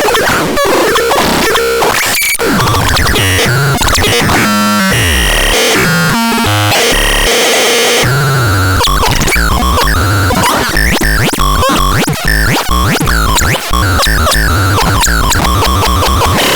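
Loud, harsh electronic noise and glitchy synthesized tones from the NOISERATU noise instrument. The tones jump abruptly between pitches and stutter, with many quick pitch sweeps in the second half.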